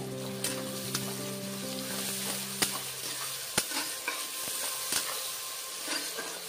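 Sliced onions and bay leaves sizzling in hot oil in a kadhai, stirred with a spatula that clicks and scrapes against the metal pan at irregular moments.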